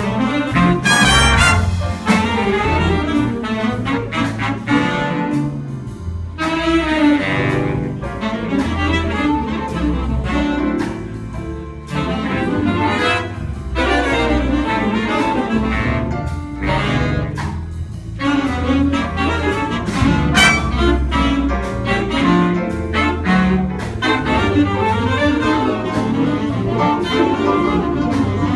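Live show-choir performance music: an upbeat jazzy number with saxophone, brass and bass playing continuously.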